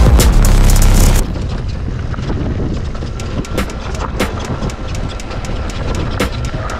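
Music with a drum beat cuts off about a second in. Then a downhill mountain bike rides over rough ground: irregular rattles, clicks and knocks from the bike over a steady rush of tyre and wind noise.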